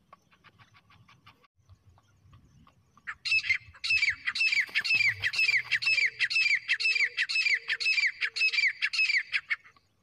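Grey francolin (teetar) calling: a loud, fast run of sharp, downward-sliding notes, about two and a half a second, starting about three seconds in and stopping just before the end.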